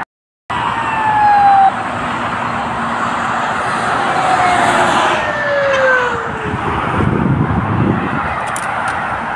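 Police siren on a passing vehicle over steady traffic noise, its tone sliding down in pitch twice, the second time a long slide. A low engine rumble swells about seven seconds in.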